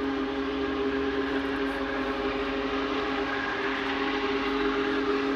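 Distant steam whistle of Union Pacific Big Boy No. 4014 sounding one long, steady chord as the locomotive approaches.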